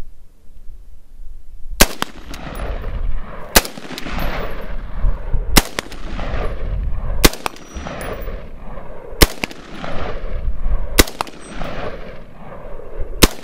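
Bushmaster Assault Rifle, a 5.56 mm long-stroke gas-piston semi-automatic carbine, firing seven single shots about two seconds apart, starting a couple of seconds in. Each shot is followed by a long echo.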